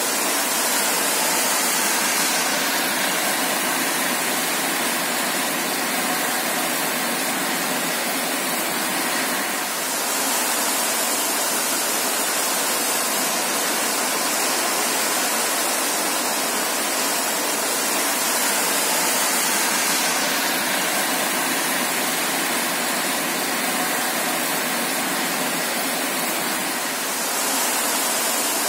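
Heavy rain falling, a steady even hiss, with a brighter high hiss swelling in for several seconds now and then.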